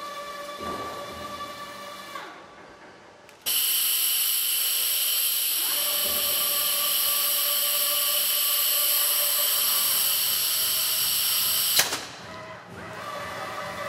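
De-palletizer gantry drives whining as the layer gripper travels. About three and a half seconds in, a loud steady compressed-air hiss from the gripper starts suddenly and holds for about eight seconds while the drive whine comes and goes beneath it. The hiss cuts off with a sharp click near the end.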